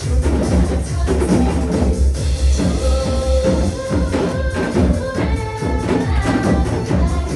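Recorded trot backing music with a steady heavy beat, with janggu hourglass drums being struck in rapid rhythm over it.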